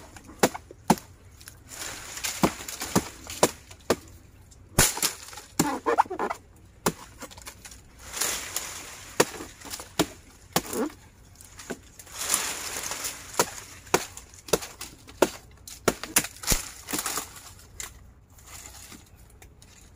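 Machete hacking at dry nipa palm fronds and stalk debris: sharp chopping strikes at irregular intervals, with crackling and rustling of dry leaves as they are cut and pulled away.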